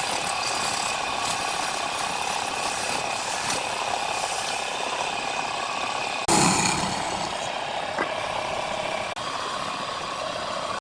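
Wood lathe running, a steady mechanical whine over a scraping hiss. It breaks off abruptly about six seconds in and comes back louder, then breaks again near nine seconds.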